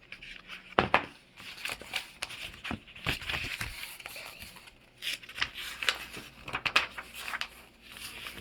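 Paper rustling and crinkling with many sharp clicks and taps as a picture book is handled and its page turned.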